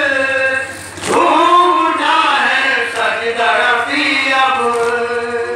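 Men chanting a noha, a Shia mourning lament, over a microphone: long held notes that glide up and down. A single sharp slap sounds about a second in.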